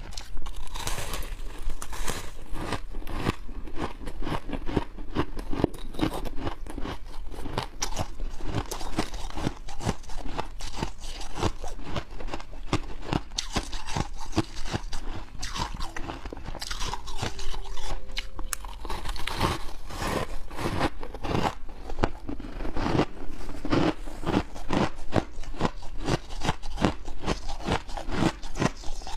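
Close-miked biting and chewing of hard white ice: a dense, continuous run of crisp crunches and cracks as chunks are bitten off and ground between the teeth.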